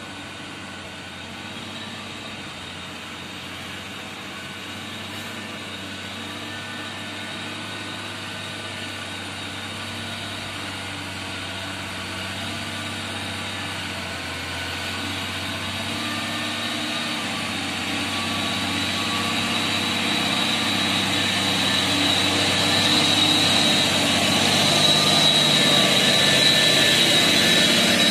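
Diesel engine of a loaded Mitsubishi truck working hard in crawler (low) gear on a slippery mud road, growing steadily louder as it comes closer, with a high whine strengthening toward the end.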